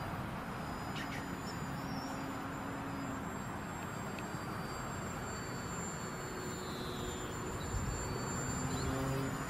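Electric RC model plane's motor and propeller giving a thin, steady high whine in flight, which dips briefly in pitch about two-thirds of the way through, over a steady rumble of wind on the microphone.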